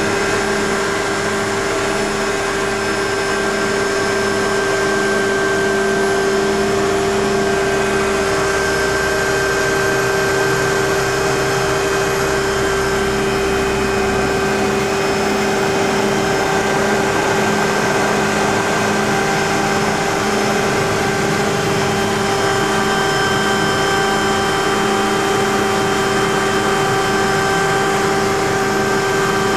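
A helicopter's engine and rotors running steadily, heard from inside the cabin: a constant mechanical whine with several held tones over a low, evenly pulsing hum.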